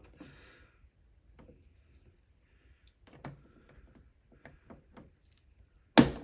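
Faint small ticks and scrapes of a pry tool working under a switch cover on a reel-to-reel deck's faceplate, then a single sharp snap about six seconds in as the cover pops loose.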